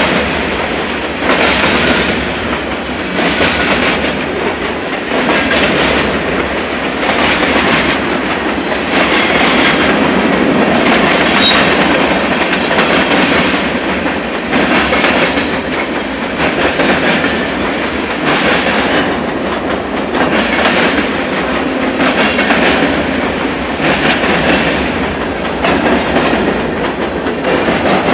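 Norfolk Southern freight train's covered hopper cars rolling past: a steady rumble and rattle with the clickety-clack of the wheels over the rail joints, a clack about every second and a half.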